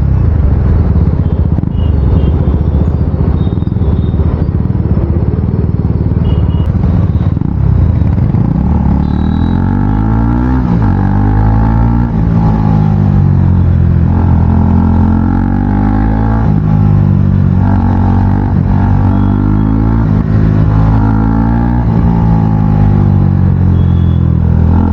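KTM Duke 250's single-cylinder four-stroke engine running loud with its stock exhaust removed. From about nine seconds in, the revs rise and fall over and over with the throttle.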